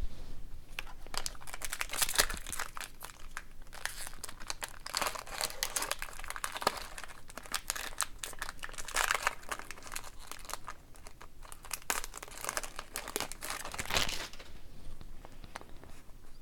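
Crinkling and crackling of a trading-card pack's foil wrapper being handled. It comes in dense clusters and eases off about two seconds before the end.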